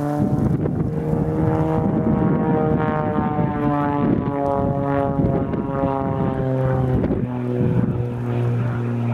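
Extra 330SC aerobatic plane's Lycoming six-cylinder engine and propeller droning overhead during a display, the pitch sliding lower through the middle and dropping again about seven seconds in as it manoeuvres.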